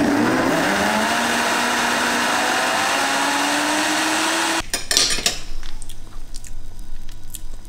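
Countertop blender running at full speed through a liquid soybean mixture, its motor pitch rising as it spins up, then cutting off suddenly about four and a half seconds in. A few clicks and knocks follow.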